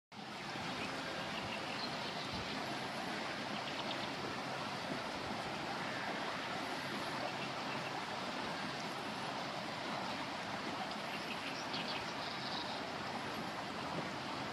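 Steady rushing of river water flowing, an even hiss that holds level throughout, with a few faint high chirps scattered through it.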